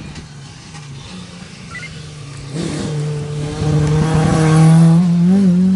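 Rally car approaching at speed and passing close, its engine building from faint to loud over the second half. The engine note wobbles briefly near the end, then climbs again as it keeps accelerating.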